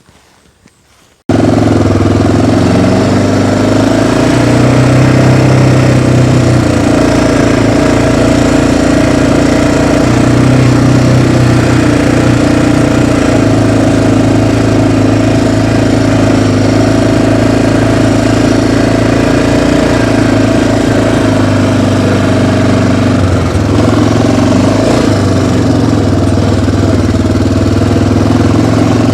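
The engine of a small riding vehicle cuts in suddenly about a second in and runs loud and steady, with a constant low pitched hum.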